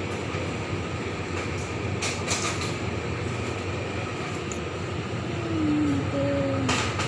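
Steady hum and airy rush of an open refrigerated display case's cooling fans. A couple of brief clicks or rustles come about two seconds in and again near the end, and a few short faint tones sound near the end.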